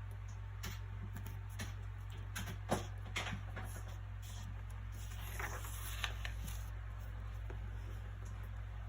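Soft paper sounds from a book being handled: scattered light taps and rustles, with a sharp click about three seconds in and a longer rustle around five to six seconds. A steady low hum runs underneath.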